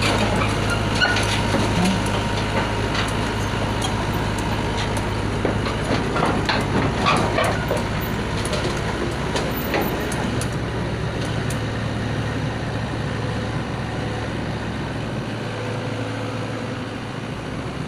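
Heavy diesel engine running steadily, with a few scattered metallic knocks and clanks, mostly in the first half.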